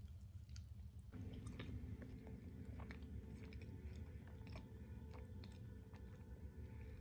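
Close-up chewing of a bite of soft orange mud cake, with small wet mouth clicks scattered throughout. A faint low hum comes in about a second in.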